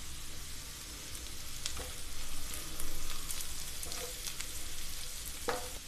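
Sliced onions and green chillies sizzling in oil in a nonstick frying pan, stirred with a wooden spatula that scrapes and clicks against the pan now and then.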